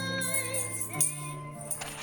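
Music: steady, held chords with several notes sounding together.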